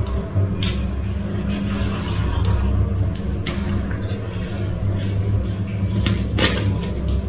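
A steady low hum, with a few sharp clicks and knocks from the knife and the fish on a tile floor: a couple in the middle as the knife is picked up, and two more near the end as it cuts in behind the golden pomfret's head.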